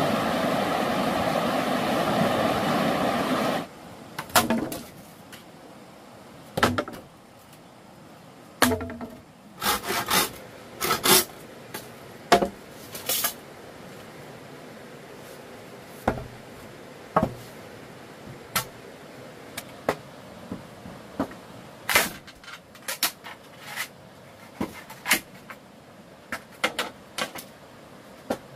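A steady loud rushing noise that cuts off suddenly about three and a half seconds in, followed by irregular knocks and taps of wood being handled and struck, some in quick pairs.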